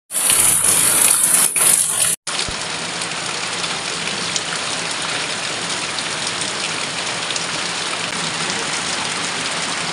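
Heavy rain pouring, with water streaming off the edge of a corrugated roof. It is louder and hissier for the first two seconds, cuts out briefly, then settles into a steady downpour.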